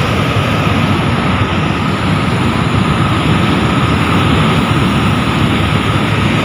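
Steady, loud roar of rushing floodwater at a river weir.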